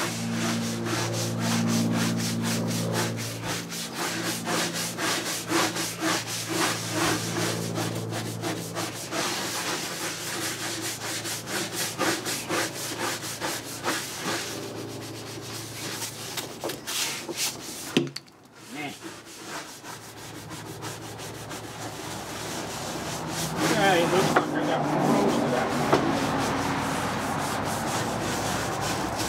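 A brush scrubbing an outboard motor's engine cowling in rapid back-and-forth strokes, working a cleaner into the surface, with a brief pause about two-thirds of the way through. A low steady hum runs underneath for the first several seconds.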